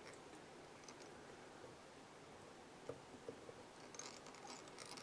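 Near silence: room tone with a few faint clicks, and a light rustle of fingers handling fly-tying materials from about four seconds in.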